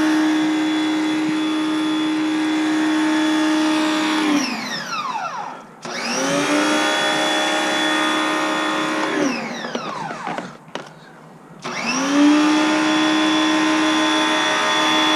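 2200 PSI electric pressure washer spraying soapy water, its motor running with a steady hum. Twice, about four and nine seconds in, the motor winds down to a stop and then starts up again, as the spray trigger is released and squeezed again.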